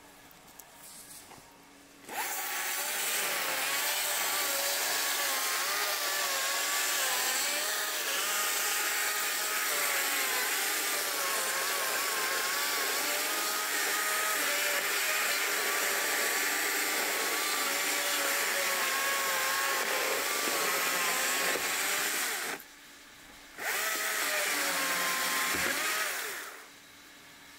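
Chainsaw running at high revs and cutting wood, its pitch wavering as the chain bites. It starts about two seconds in, breaks off for about a second near the end, runs again and stops shortly before the end.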